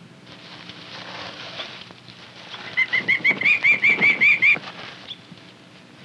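Prairie falcon giving a rapid, harsh series of about a dozen kek calls in under two seconds, the alarm cackle of a falcon being handled, after a stretch of rustling.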